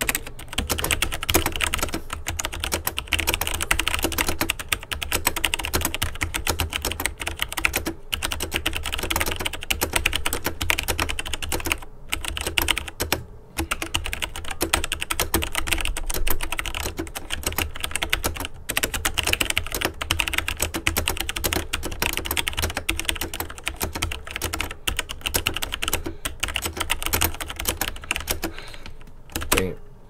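Fast, continuous typing on a Logitech G613 wireless mechanical keyboard with Romer-G tactile switches: a dense run of key clicks with a few short pauses, stopping about a second before the end.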